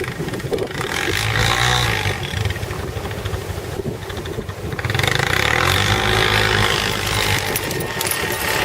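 Four-wheeler (ATV) engine running under load in deep snow, revving up about a second in and again about five seconds in.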